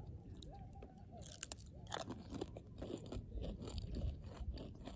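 Two people biting into and chewing Lay's potato chips: a scatter of crisp crunches, fairly quiet.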